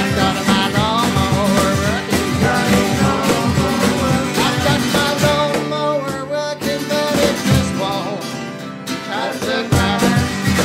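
Country-blues band playing: guitars strummed and picked over a steady cajón beat.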